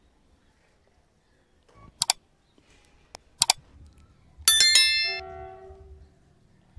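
Subscribe-button animation sound effect: a few sharp mouse clicks about two to three and a half seconds in, then a bright bell ding that rings out over about a second and a half.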